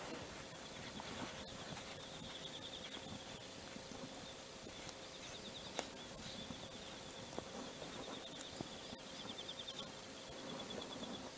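An insect trilling in long pulsed stretches that stop and start, high-pitched and fairly faint, with a few small sharp clicks in the middle.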